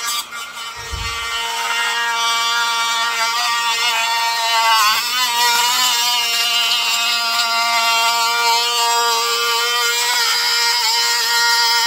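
Power tool spinning a cutoff wheel with a steady high whine, slitting PLA plastic fins. The pitch dips briefly about five seconds in and again near the end as the wheel bites into the plastic.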